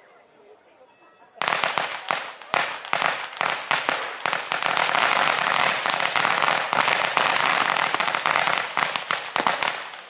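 A string of firecrackers going off, starting about a second and a half in as a fast, unbroken crackle of sharp bangs that runs for about eight seconds and stops just before the end.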